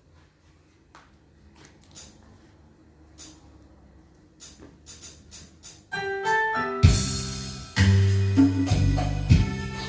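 A few faint clicks and taps. About six seconds in, an electronic keyboard begins playing a melody, and under a second later a full accompaniment with a heavy bass joins it: the intro of a song backing.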